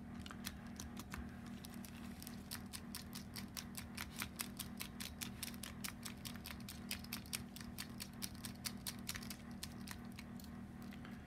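Rapid, irregular light clicking of small metal screws and a hand tool as the cylinder-head screws of a Toyan FS-L400 model engine are set in, over a steady low hum.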